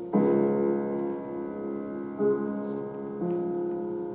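Instrumental break of a karaoke backing track: sustained piano chords, a new chord struck at the start, again about two seconds in and once more a second later, with no singing.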